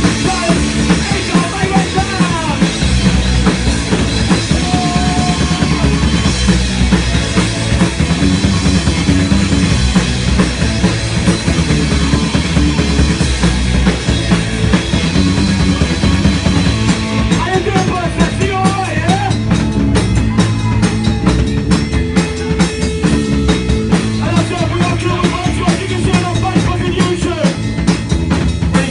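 Live rock band playing an uptempo tune, with a full drum kit driving the beat under bass and guitar.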